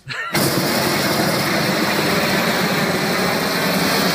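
Propane torch (a long-wand weed-burner type fed by hose from a propane cylinder) firing on full: a loud, steady roar of burning gas that starts abruptly about a third of a second in.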